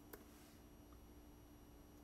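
Near silence: faint room tone, with a single soft computer-keyboard keystroke just after the start.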